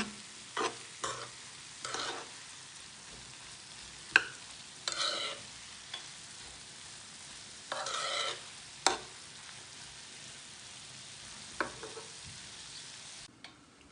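Sliced onions frying gently in butter in a pan, sizzling steadily, while a metal spoon stirs them, scraping and knocking against the pan now and then; a sharp clink about four seconds in is the loudest stroke. The onions are at the stage of softening over medium heat.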